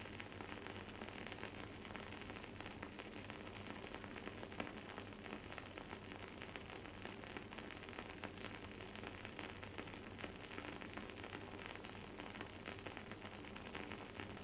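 Wood-wick candle burning with a faint, dense crackle of small rapid pops, and one louder pop about four and a half seconds in. A steady low hum sits underneath.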